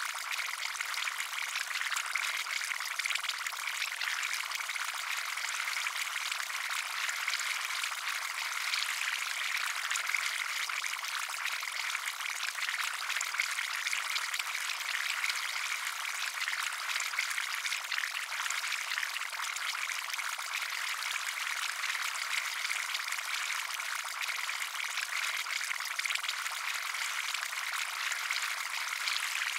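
Bubbling-potion sound effect: liquid fizzing and bubbling in a dense, steady patter of many small bubbles, light and high with no deep sound.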